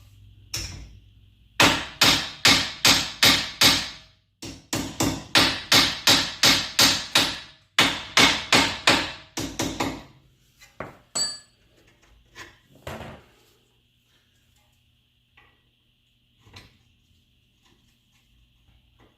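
A hammer struck repeatedly in three quick runs of about three blows a second, then a few lighter scattered knocks, during work on a car's front strut assembly.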